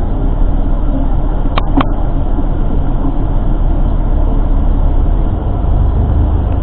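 Tour bus under way: steady engine and road rumble heard inside the cabin, with two short sharp sounds about a second and a half in.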